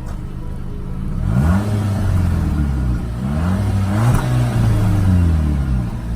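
Audi A3 engine on its stock exhaust, idling and then revved up and down several times in neutral, with a short gap between revs.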